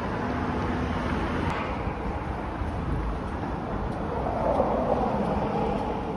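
Steady low rumble and hiss of a vehicle running.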